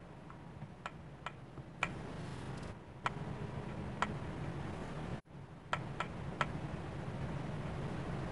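Fingertips tapping on a tablet's glass touchscreen while chord-typing Braille: sharp taps at uneven intervals, about one every half second to second, over a low steady hum.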